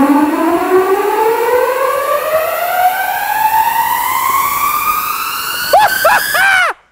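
Built-in DJ sound effect played through the LG OJ98 party speaker. It is one long tone rising steadily in pitch for about six seconds, followed by a few quick up-and-down chirps, then it cuts off suddenly.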